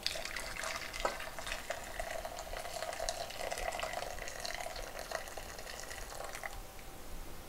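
Boiling water poured from a stainless steel saucepan into a glass measuring cup: a steady splashing pour with small crackles, which stops near the end.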